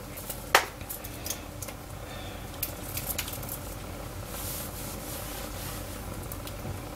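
A spatula stirring thick béchamel sauce in a stainless steel saucepan, rubbing and scraping over the pan's bottom and sides, with a sharp knock about half a second in and a few light clicks after it.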